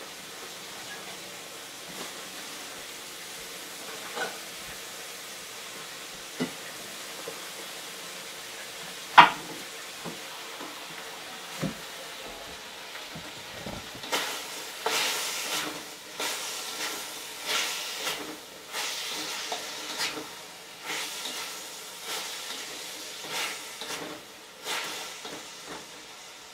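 Chicken sizzling in a hot wok, with a few separate knocks in the first half. From about halfway through, a spatula stirs and scrapes the chicken around the wok in repeated strokes, about one or two a second, and the sizzle swells with each stroke.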